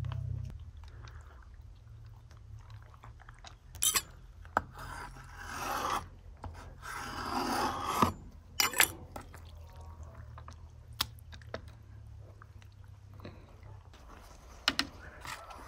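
Two stretches of rubbing or scraping, each a second or two long, with a few sharp clicks or knocks, over a low steady hum.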